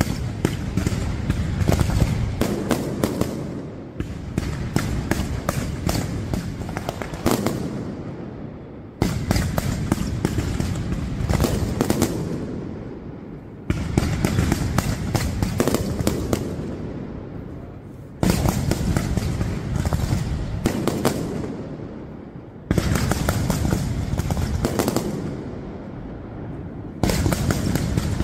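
Fireworks display: a dense barrage of rapid bangs and crackling that comes in waves. Each wave starts abruptly about every four to five seconds and fades away before the next.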